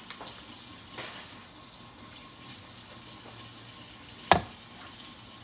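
Collard greens sizzling faintly in a skillet, a steady low hiss. There is a small click about a second in and one sharp knock near the end as something is set down hard on the countertop.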